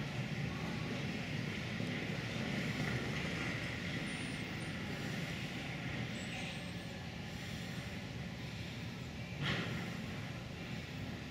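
Steady ice-arena background noise with no clear voices, broken by one short sharp knock near the end.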